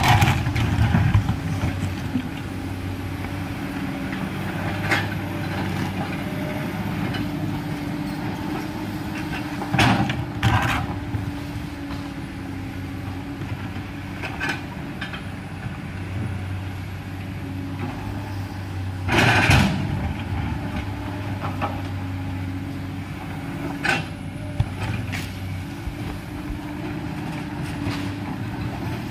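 Komatsu hydraulic excavator's diesel engine running steadily under load with a hydraulic whine, its pitch shifting as the arm works. The steel bucket scrapes and knocks against rock and loose stones about six times, loudest about two-thirds of the way through.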